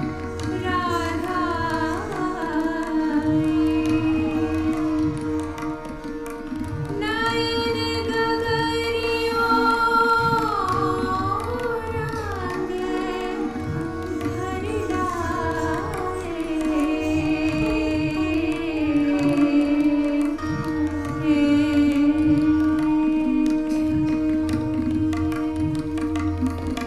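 Indian classical music accompaniment: tabla strokes keeping rhythm under gliding melodic phrases over a steady drone.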